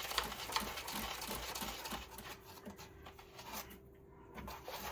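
Quick, irregular scratching and clicking as the foam insulation around the water heater's anode access hole is picked and dug at, thinning out after about two seconds. A faint steady hum sits underneath from then on.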